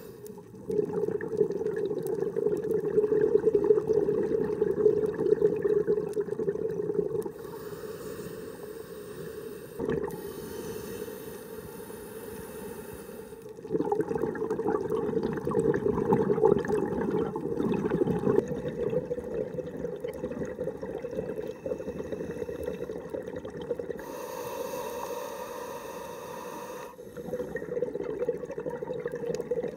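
Scuba regulator breathing underwater. Long bubbling exhalations, each several seconds, alternate with quieter inhalations that carry a thin hiss.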